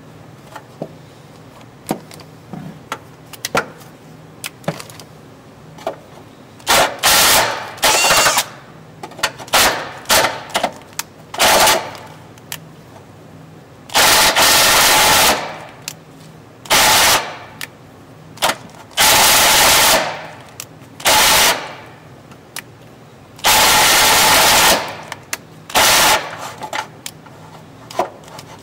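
A handheld power tool runs in short bursts, about eight of one to two seconds each, with a whine over a rough hiss, as it cuts into the vehicle's steel frame to elongate the hitch mounting holes. Light clicks and scrapes of the tool against the metal come between the bursts.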